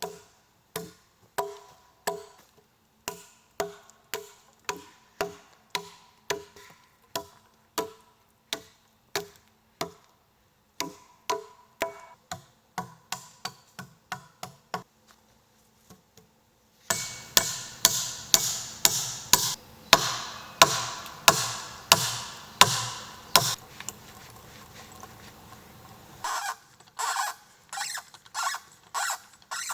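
Repeated hand-tool blows on wood, about one and a half a second with a short ringing after each. They pause about 15 s in, then come back louder and a little faster, ease off, and pick up again near the end.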